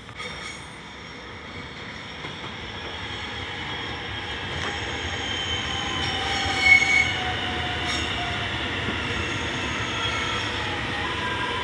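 Alstom X'Trapolis electric train arriving at the platform, growing steadily louder as it approaches and slows, with several high whining tones gliding slowly down in pitch. A short, loud high note sounds about seven seconds in.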